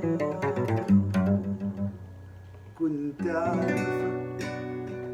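Plucked string instrument playing a melody: notes ring out and fade over the first two seconds, then a new phrase of held notes comes in about three seconds in.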